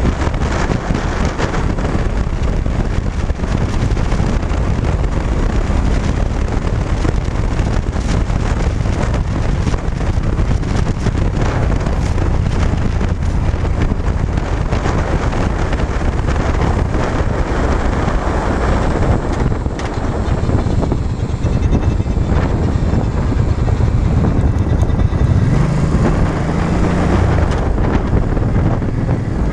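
Wind buffeting the microphone of a cruiser motorcycle at road speed, with the engine's low rumble underneath. Near the end the engine note changes as the bike slows toward a roundabout.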